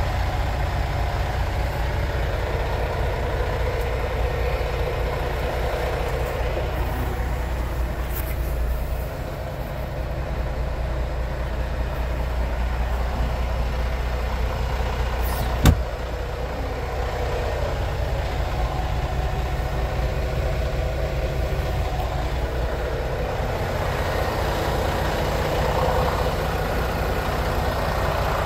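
Semi truck's diesel engine idling steadily at about 550 rpm, a constant low hum heard from inside the cab. A single sharp click about halfway through.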